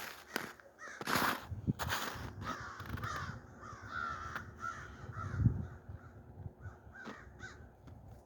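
Crows cawing repeatedly, with wavering calls mostly in the middle of the stretch. A few rustles and thumps come in between, the loudest a low thump about five and a half seconds in.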